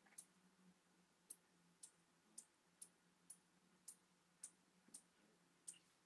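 Near silence, with faint sharp clicks about every half second over a faint steady hum.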